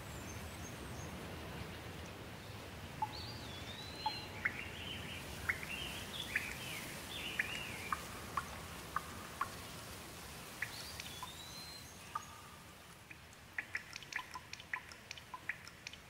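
Steady rain with a bird singing over it: a run of slurred whistled notes and short chips from about three seconds in, and a shorter phrase a few seconds later. Near the end the rain thins and single drops plop one after another.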